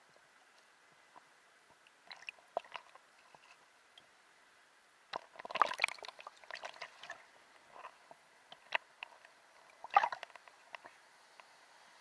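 Sea water sloshing and splashing against a camera held at the water's surface among small waves. Scattered splashes begin about two seconds in, with louder bursts of splashing about five to six seconds in and again near ten seconds.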